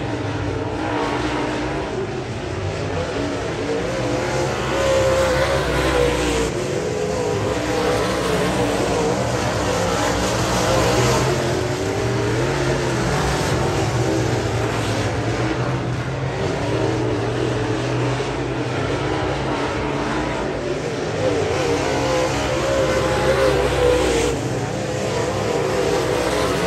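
Several dirt-track race cars running laps together, their engines rising and falling in pitch as they go on and off the throttle around the oval, heard from the grandstand.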